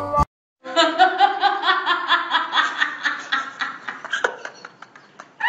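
A person laughing: a long run of quick chuckles that starts after a brief silence and slowly fades.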